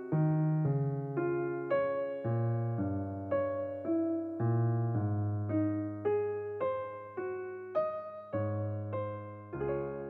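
Background music: a calm electric piano melody, one note struck about every half second and left to fade.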